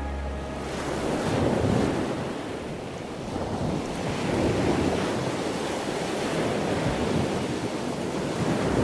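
Ocean surf washing ashore in slow swells, each lasting a few seconds, with wind in the background.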